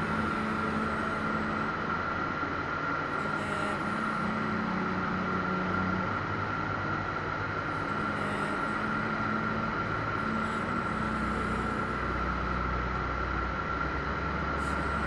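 Eurofox light aircraft's engine and propeller running steadily in cruise, heard from inside the cockpit, with a steady high whine through the drone.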